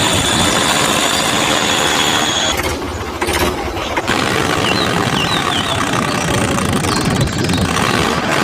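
A small motor running with a steady high whine. The whine cuts out about two and a half seconds in, the noise drops for a second or so, then picks up again and runs on.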